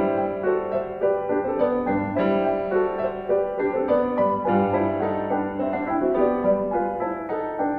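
Background piano music: a steady flow of notes.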